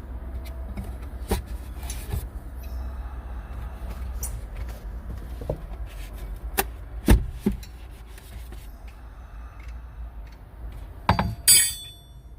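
Scattered knocks and clacks of a tire wrench and scissor jack being handled in a car's trunk, the loudest about seven seconds in, over a steady low rumble. A brief squeaky scrape near the end.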